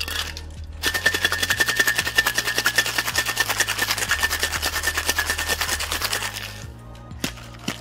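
Ice rattling hard inside a two-piece metal cocktail shaker as a drink is shaken, in a fast, even rhythm that starts about a second in and stops about a second before the end. A couple of light knocks follow.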